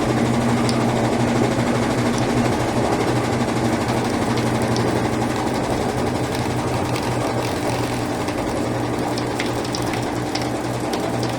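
Brastemp Ative 11 kg BWL11 washing machine spinning its drum in the spin before the rinse: a steady motor and drum hum at an even pitch, with a few faint ticks.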